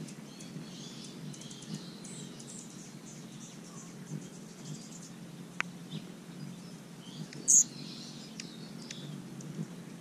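Hummingbirds chirping around a nectar feeder: thin high chips scattered throughout, with one loud, sharp squeak about seven and a half seconds in, over a low steady hum.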